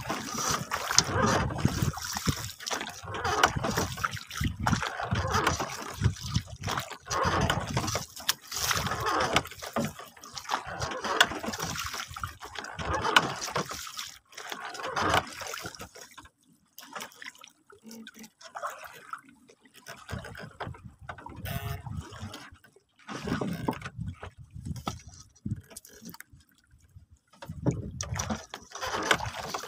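Seawater sloshing and lapping against a small wooden boat's hull in uneven surges, with irregular splashes; it quietens for several seconds about two thirds of the way through.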